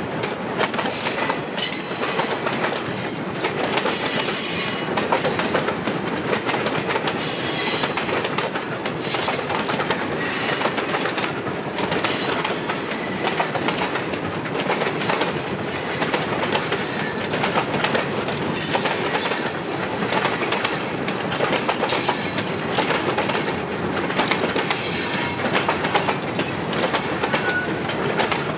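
Freight train's boxcars rolling steadily past: steel wheels clicking over rail joints, with some light wheel squeal.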